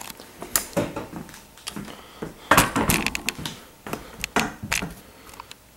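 Handling noise: irregular clicks, taps and knocks of hard objects being moved about on a work surface, loudest in a cluster about two and a half seconds in.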